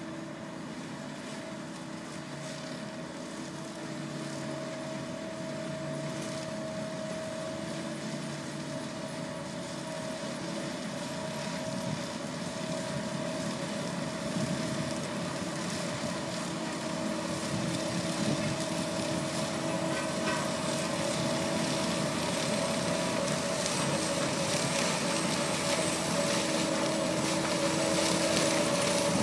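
Ropa EuroTiger self-propelled beet harvester at work lifting fodder beet: its diesel engine and lifting and cleaning machinery run as a steady drone with a constant mid-pitched whine, growing louder as the machine draws closer.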